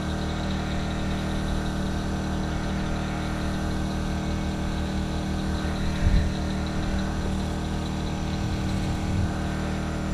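A motor on the boat runs steadily with an even low drone. There is a single dull thump about six seconds in.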